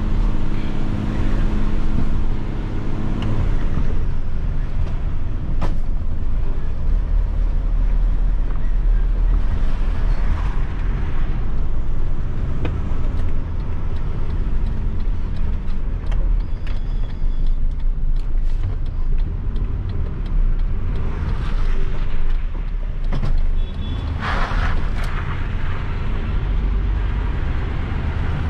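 Isuzu Giga concrete mixer truck's 14,250 cc diesel engine running under way, a steady deep rumble heard from inside the cab, with a few short rattles and clicks.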